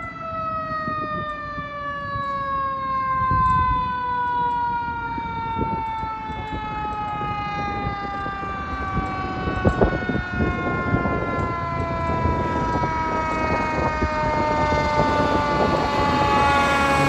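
Fire truck siren slowly winding down in pitch after a fast wind-up, with the truck's engine rumbling underneath as it approaches. The siren starts rising again near the end. A few short, sharp sounds come about ten seconds in.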